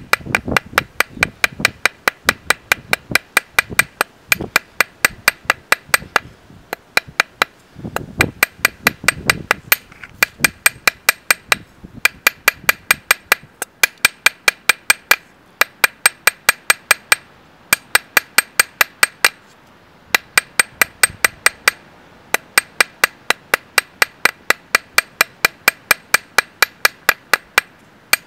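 Hand hammer striking an iron rod laid on a hammer head used as an anvil. It goes in fast, steady runs of about four blows a second, each blow ringing with a bright metallic tone, with a few short pauses between runs.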